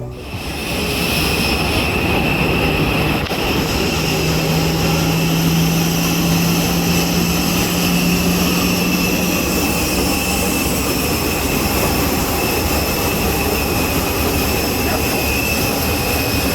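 Jet aircraft turbine noise: a steady rush with a high whine held throughout, and a low hum that comes in about four seconds in and fades a few seconds later.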